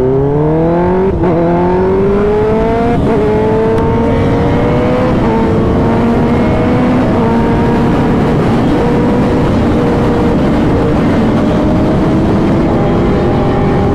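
Kawasaki sportbike engine accelerating hard through the gears. Its pitch climbs and drops back at upshifts about one, three and five seconds in, then holds a steady high-revving run at highway speed. Heavy wind rush on the microphone sits over it.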